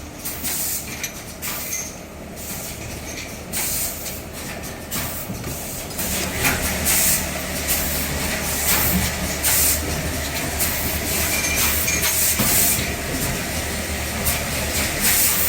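Cable-moulding injection machine running on a factory floor: a steady low mechanical hum with repeated short hisses, louder from about six seconds in.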